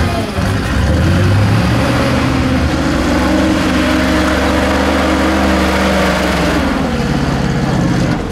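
ZIL-131 6x6 truck's engine working under load as the truck climbs a steep dirt bank, revs rising about a second in, holding steady, then easing off near the end.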